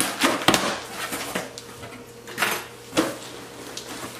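Cardboard shipping box being opened by hand: packing tape cut through with a small tool and the flaps scraped and pulled apart. Sharp clicks come in the first half second, and two louder cardboard swishes come about two and a half and three seconds in.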